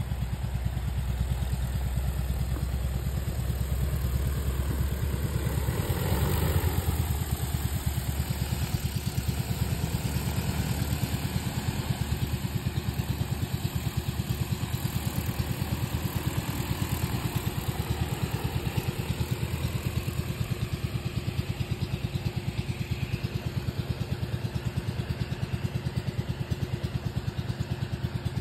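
DJI Agras T40 agricultural spraying drone's rotors droning as it flies over the field, swelling as it passes closest about six seconds in and again more faintly around twenty seconds, over a steady rapid throb.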